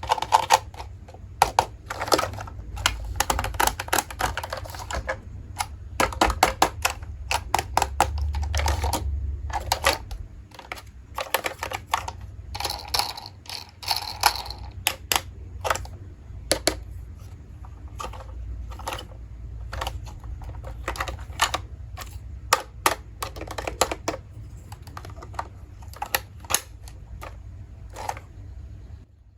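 Plastic toy pieces clicking and tapping as they are handled, in quick irregular runs of several clicks a second over a low steady hum.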